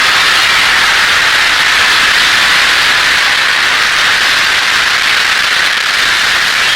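Loud, steady hiss of television static (white noise), unchanging throughout.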